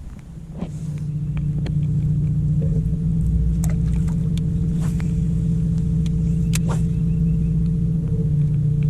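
Boat motor running steadily after building up over the first couple of seconds, with a few light knocks.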